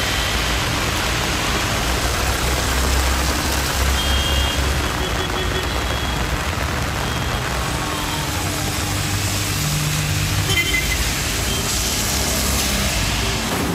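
Steady rain and traffic on a wet road: a hiss of rain and tyres over the low rumble of passing car engines. A few short high-pitched tones come about four seconds in and again near eleven seconds.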